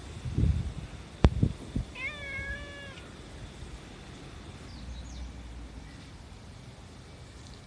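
A white-and-tabby cat meows once, a single drawn-out meow about two seconds in. Just before it come a few low thumps and one sharp click.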